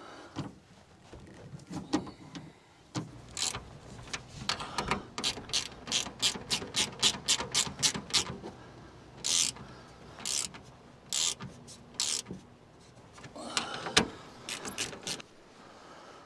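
Ratcheting wrench clicking as bolts are run down into threaded inserts. It clicks in quick runs of about four strokes a second, then in slower, spaced strokes later on.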